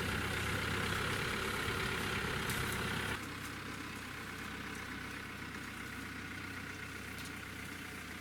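A steady engine hum, like a motor running at idle. About three seconds in it drops abruptly to a quieter, duller sound that carries on steadily.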